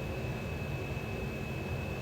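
Steady background noise: a low hum with a hiss over it and a faint, even high-pitched whine, with no breathing or snoring rhythm.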